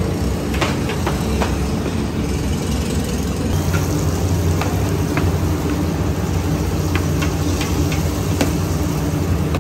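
Vadas deep-frying in a large pan of hot oil: a steady sizzle over a continuous low rumble from the stove, with scattered clinks of the metal slotted ladle against the pan and basket.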